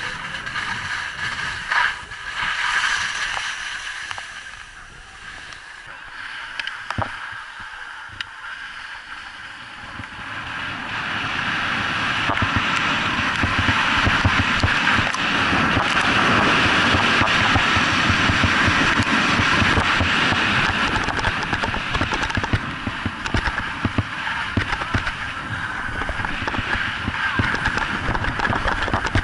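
Wind rushing over an action camera's microphone and skis scraping on packed snow during a downhill run. It is quieter around five to nine seconds in, then builds to a steady loud rush with rapid scrapes from about ten seconds on.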